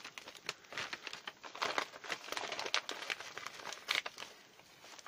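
Packaging crinkling and rustling in irregular bursts as a mailing bag is handled and opened to get its contents out.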